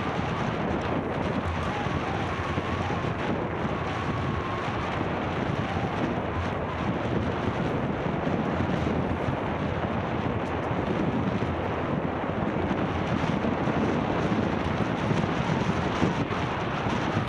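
Steady rushing wind noise on the microphone of a handlebar-mounted camera on a moving bicycle.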